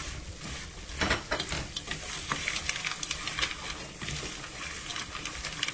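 Wooden spoon stirring and scraping corn kernels in a metal pot, with irregular clicks and scrapes over a steady sizzle. The panela syrup around the kernels is cooking down to a candy-like coating.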